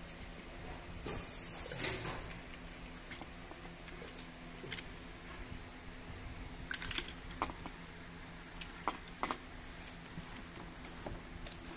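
Hard plastic parts of a water pump and thermostat housing being handled, giving scattered light clicks and taps. There is a brief rustling hiss about a second in.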